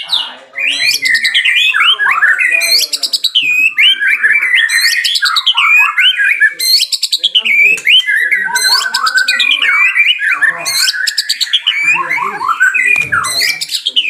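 A songbird singing a long, unbroken, varied song of fast rising and falling whistled notes.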